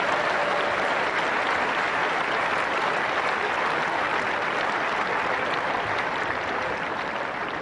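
Tennis stadium crowd applauding in a steady, dense wash of clapping that fades a little toward the end.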